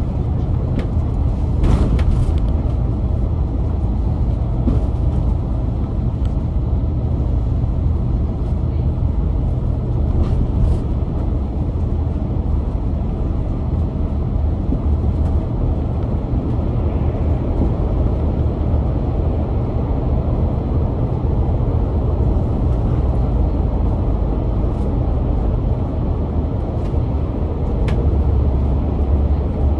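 Volvo B8L double-decker bus with its Volvo D8K-350 diesel running on the move, heard from on board: a steady low engine and road rumble with a few light rattles and clicks.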